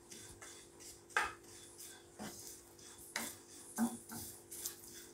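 Spatula stirring and scraping grated coconut, shallots and curry leaves around a nonstick frying pan as the coconut dry-roasts to brown. It comes as faint, uneven strokes with a few louder scrapes.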